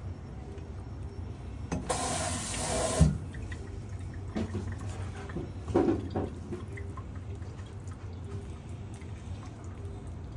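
A kitchen tap runs briefly for about a second, ending in a sharp knock. A few seconds later there are a few soft knocks as cooked chicken is handled on a wooden chopping board, over a steady low hum.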